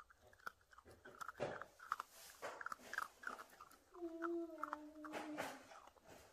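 Mini dachshund puppy gnawing and crunching on a small hard chew: a string of crisp clicks and crunches. About four seconds in there is one drawn-out whine-like note, about a second and a half long.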